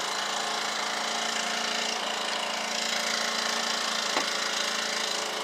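A steady mechanical hum with a light hiss, like a motor or engine running evenly, with a small knock about four seconds in.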